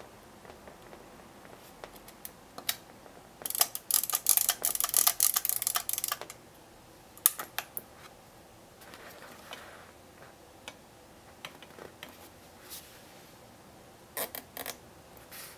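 Yashica Mat 124G twin-lens reflex camera being worked by hand: its film-advance crank is wound with a fast run of ratcheting clicks lasting about two and a half seconds, followed by scattered single mechanical clicks. Near the end, a few clicks come as the self-timer is set.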